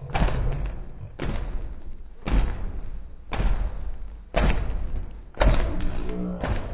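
An inflated latex balloon struck over and over, a dull thud about once a second.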